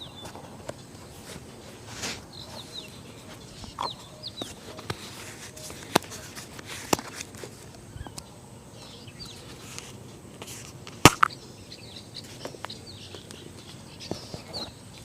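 Scattered sharp taps and knocks from shoe-shining work at a street cobbler's stand, the loudest about eleven seconds in. Birds chirp throughout in the background, with calls PANN hears as chicken clucks.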